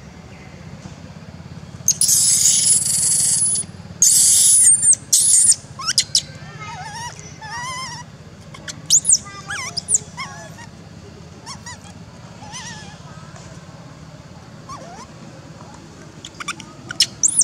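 Baby long-tailed macaque screaming in distress: two loud, shrill, high-pitched screams about two and four seconds in. Softer wavering whimpers and squeaks follow, with short sharp squeals around nine seconds and near the end.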